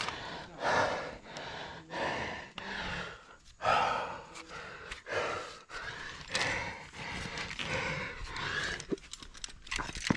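A climber panting heavily while crack climbing, with quick, loud breaths in and out about once or twice a second.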